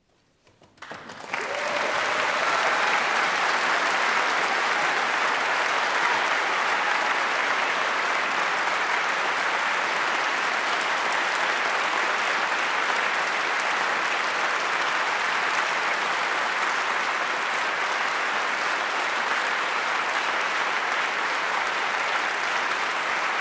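Concert audience applauding: after about a second of near silence the clapping breaks out and holds steady and dense.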